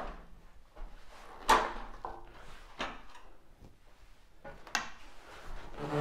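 A few separate knocks and clunks from handling equipment, the loudest about a second and a half in, as test leads and probes are picked up and sorted.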